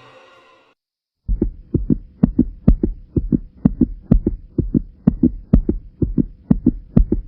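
Background music fades out, then a rapid run of short, low thumps follows, about four a second, over a faint steady hum.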